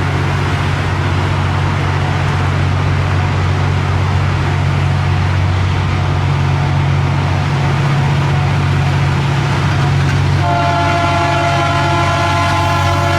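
Diesel freight locomotive working at full power, its engine a loud steady drone. About ten seconds in, its multi-tone air horn starts up and is held.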